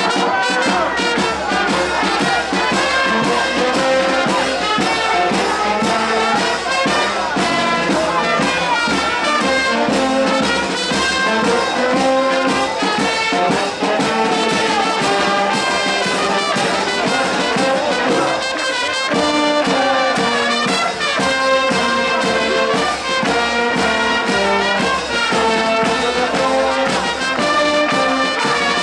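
Brass band playing a tune, trumpets and trombones over a steady beat.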